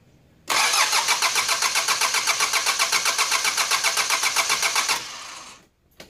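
Mitsubishi 4D56 four-cylinder diesel cranking on its starter motor for about four and a half seconds, an even chug of about eight pulses a second, then stopping. It turns over without firing because the injector fuel lines are loosened: the crank is a test that the injection pump is delivering diesel to the injectors.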